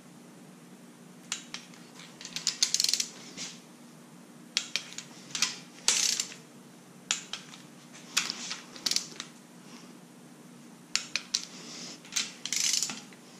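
A 3/8-inch click-type torque wrench ratcheting on the small upper cylinder-head bolts of a 5.3 LS V8, in short bursts of rapid clicks with pauses between, as each bolt is run down to 22 foot-pounds.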